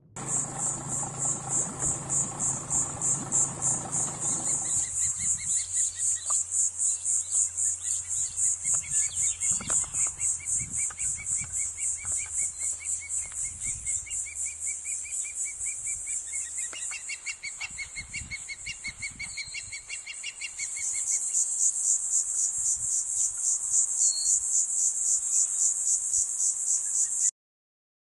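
Insects calling in the trees: a high, rhythmic pulsing trill with several pulses a second, growing louder near the end. A second, lower pulsing call runs through the middle, and a low steady hum sits under the first few seconds.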